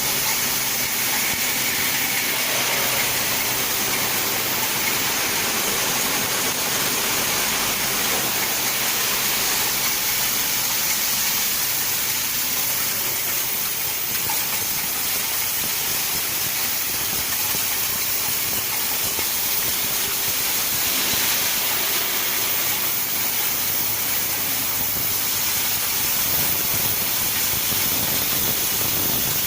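Nail-inspection and sorting machine running: a steady hiss over a faint low motor hum.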